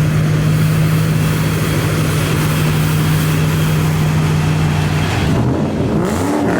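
Shelby GT500's V8, exhaust running with the catalytic converters deleted, held at steady revs for about five seconds, then the revs drop and climb back near the end.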